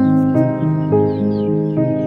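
Background music: sustained notes and chords that shift pitch about every half second.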